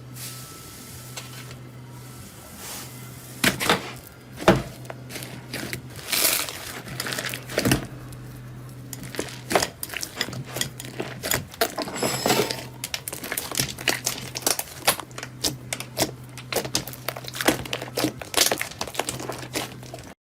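Slime being squeezed and pressed by hand, giving many quick crackles and pops that come thicker and louder after the first few seconds, over a steady low hum.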